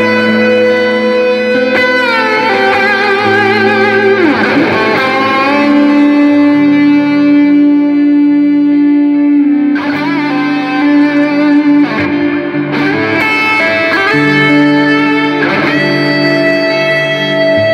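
Electric guitar playing slow, long-sustained notes, with several swooping dips and returns in pitch.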